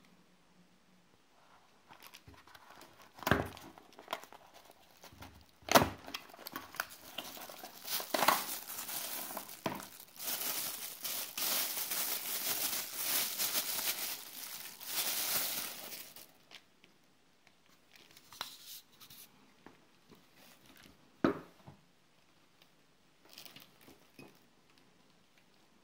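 Clear plastic packaging bag crinkling and rustling as an accessory is handled and unwrapped from it, most continuously for several seconds in the middle. A few sharp knocks and clicks of hard plastic parts handled on the table stand out as the loudest single sounds.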